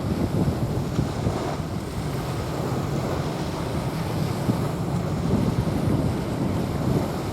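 Small waves washing onto a sandy beach, with wind buffeting the microphone and a low, fluctuating rumble throughout.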